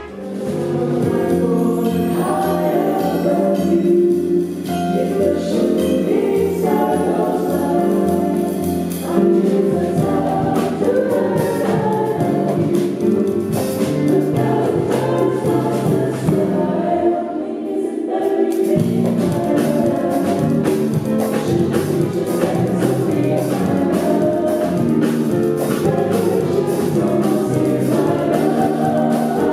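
A vocal ensemble singing together with instrumental accompaniment and a steady beat.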